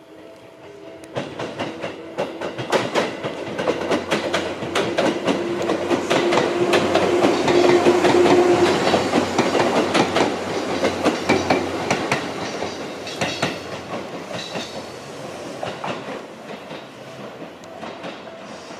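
Seibu 4000 series electric train passing close by, its wheels clacking rapidly over the rail joints over a steady hum. The sound builds from about a second in, is loudest about eight seconds in, and then fades away.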